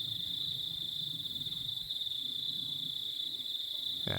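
Crickets chirring in a steady, unbroken high trill, a continuous night insect chorus.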